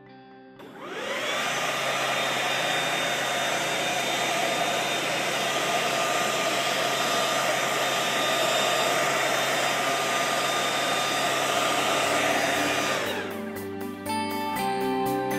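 Reduced-noise electric leaf blower, rated 80 dB(A), spinning up with a rising whine about half a second in, running steadily at full speed with a strong air rush, then winding down near the end.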